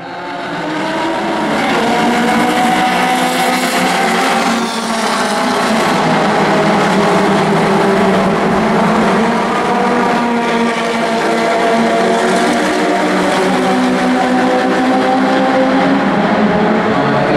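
A pack of Caterham and Lotus Seven racing cars, with a few prototypes, driving past together at racing speed. Many engines run at once, their pitches overlapping, loud and sustained.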